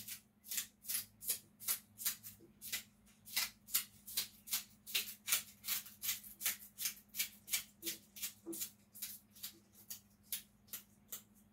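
Knife slicing scallion stalks held in the hand, a crisp cut about three times a second in a steady rhythm.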